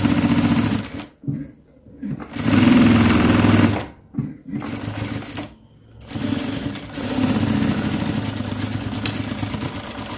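Zoje industrial sewing machine stitching cotton fabric in stop-start runs: it sews for about a second, stops, sews again for a second and a half, gives a short spurt, then runs steadily through the last four seconds.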